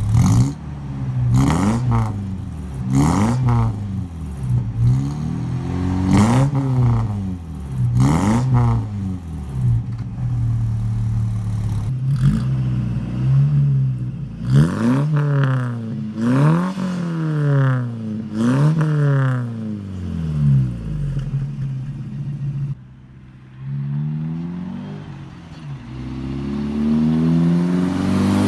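Toyota mini truck engine revved again and again through a freshly fitted muffler and blast pipes: each rev is a quick rise and fall in pitch, about one every one and a half seconds. It settles briefly to a quieter idle about two thirds of the way through, then revs up once more near the end.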